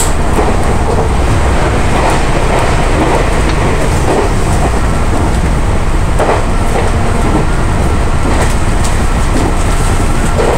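Meitetsu electric train running at speed, heard from the front cab: a steady rumble of wheels on rail with occasional sharp clicks over rail joints. The train passes through a short tunnel at the start.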